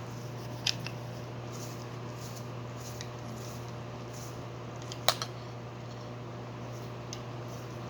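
Two sharp clicks of small hard parts being handled, one about a second in and a louder one about five seconds in, with a few faint ticks between, over a steady low hum.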